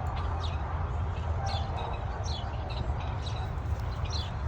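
A bird chirping repeatedly, short high notes sliding downward about once a second, over a steady low rumble.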